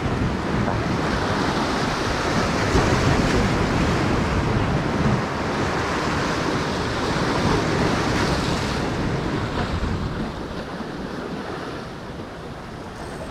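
Rough surf with waves breaking, and wind buffeting the microphone. The noise eases somewhat about ten seconds in.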